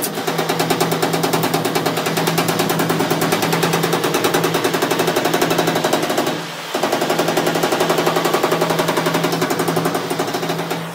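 Fast, even run of metal-on-metal strikes on a sheet-steel panel, with the panel ringing under them. It stops for a moment about six seconds in and then starts again.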